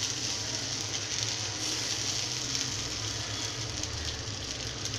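Dosa batter sizzling steadily on a hot oiled dosa tawa while it is spread thin in circles, a constant high hiss.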